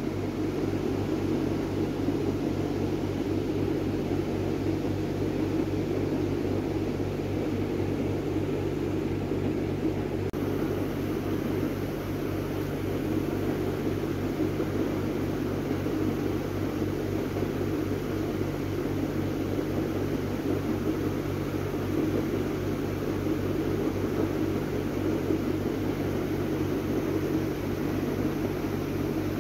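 A steady low machine hum with an even whir over it.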